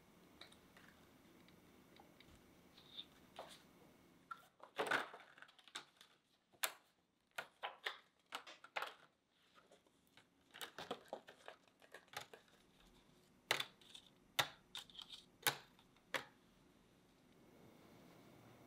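Thin clear plastic sheet crinkling and crackling as it is peeled off hardened white chocolate discs, a run of sharp irregular crackles that starts about four seconds in and stops shortly after sixteen seconds.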